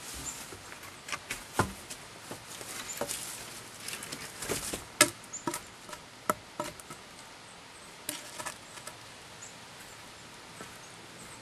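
Wooden poles knocking and clattering against one another and the ground as they are stood up for a lean-to framework, with rustling of leaf litter. The knocks are sharp and irregular, and they thin out in the last few seconds.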